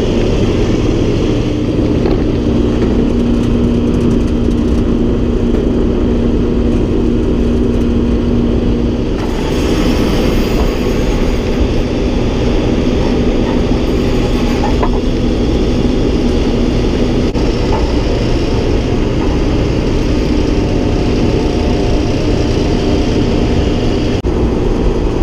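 Tractor engine running steadily under load, driving a hay grinder as it grinds a bale. About nine seconds in, the sound turns harsher and hissier.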